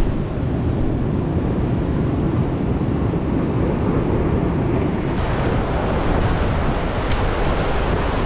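Wind noise on the microphone over surf washing against rocks. About five seconds in, the hiss of the breaking waves grows brighter.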